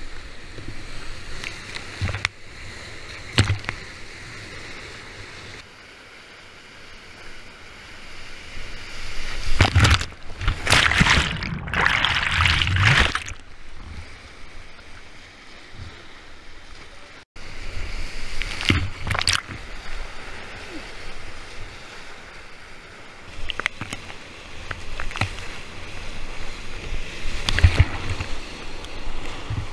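Rushing whitewater of a high-volume river around a kayak, heard from close to the water, broken by sharp splashes as waves break over the boat and the camera. The heaviest splashing comes about ten seconds in and lasts a few seconds, with further bursts later on.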